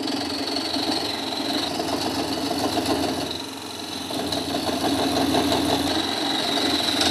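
Wood lathe running while a turning gouge cuts into a spinning wooden blank: a steady machine hum with a high whine over it and the rough scrape of the cut, easing briefly a little past the middle.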